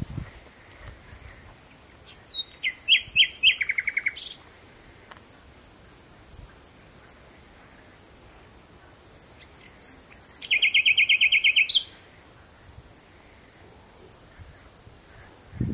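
Common nightingale singing two separate song phrases, one about two seconds in and one about ten seconds in. Each phrase is a few short high whistled notes leading into a fast run of rapidly repeated notes, over a steady high hiss.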